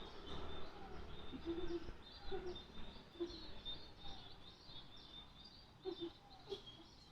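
Small birds chirping over and over in short high notes, with about five short, low calls in between.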